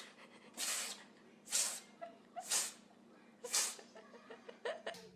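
A pet sneezing repeatedly: four sharp sneezes about a second apart, followed by smaller snorts near the end.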